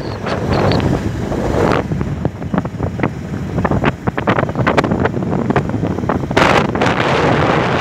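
Wind buffeting the phone's microphone on a moving motorcycle, a loud rumble in uneven gusts with the strongest gust near the end.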